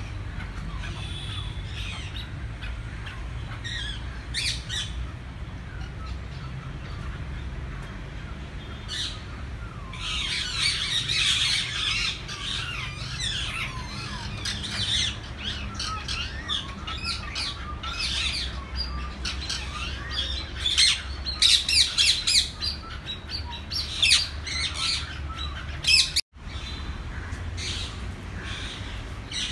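Many caged birds in a zoo aviary calling: a few scattered calls at first, then from about a third of the way in a busy chorus of chirps and squawks, with a run of loud sharp calls near the end. A steady low rumble runs underneath, and the sound cuts out for an instant shortly before the end.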